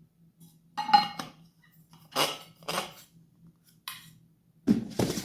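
A bottle being handled: a handful of short clinks and knocks, the first about a second in with a brief ringing tone.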